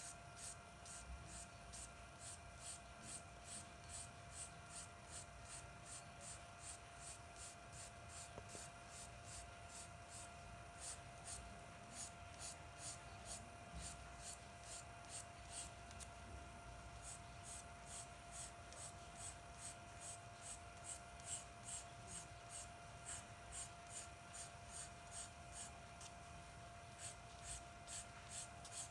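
Pencil scratching on paper in short, quick flicking strokes, about three a second, as fine hairs are shaded in, over a faint steady hum.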